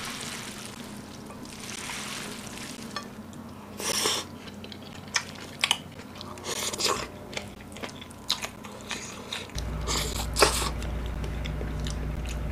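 Close-miked eating sounds: wet squishing as a spicy kelp-noodle salad with squid and vegetables is tossed by gloved hands, then chewing and crunching of the salad with a few sharp clicks. A low steady hum comes in near the end.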